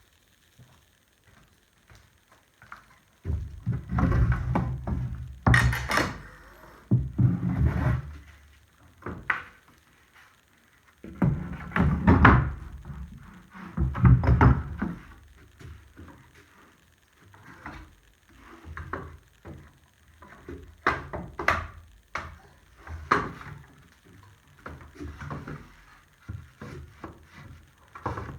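Irregular thunks, knocks and scraping as pieces are handled and set into place at a table saw, in two longer loud stretches followed by scattered lighter knocks.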